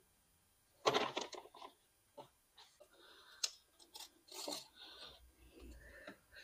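Rubber and plastic air-intake parts being pushed and twisted together by hand: short scattered bursts of rubbing, creaking and light clicks, busiest about a second in.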